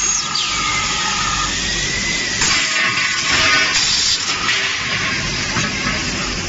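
Gas cylinder roll stamping line running: a steady mechanical hiss with louder hissing surges about two and a half, three and a half, and four and a half seconds in. A whistling tone drops quickly in pitch at the start, then holds steady for about two seconds before it stops.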